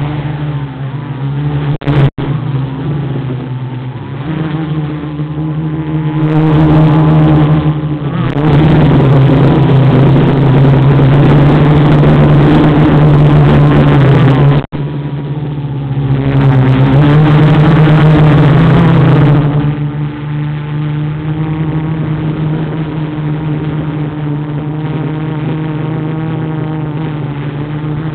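Quadcopter motors and propellers buzzing close to the onboard camera, the pitch and loudness rising and falling with the throttle as it climbs. There are two louder full-throttle stretches, and the sound cuts out for an instant twice, about two seconds in and about halfway through.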